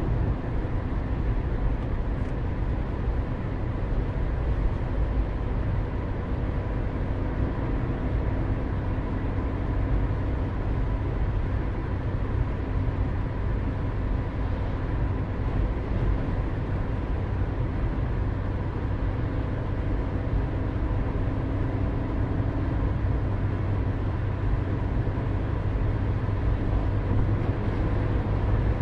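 Steady drone of a car driving at a constant speed: low engine and road rumble with faint steady engine tones. It holds even throughout, with no gear changes or other events.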